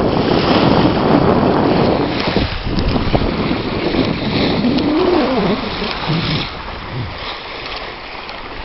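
Wind buffeting the microphone over the rush of water along the hull of a sailing yacht under way. The wind noise eases after about six seconds.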